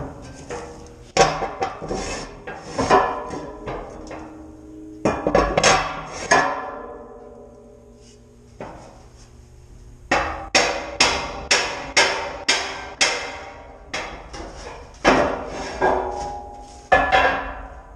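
Metal 16-inch gun powder canisters being knocked and shifted, giving ringing metallic clanks in bursts, with a quick run of knocks about ten seconds in.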